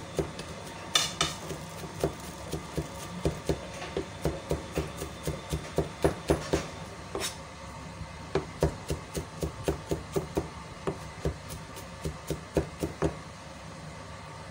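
Hands working a plate of dry-rubbed pork ribs: irregular light taps and knocks on the plate and meat, about three a second, with a short pause about halfway through.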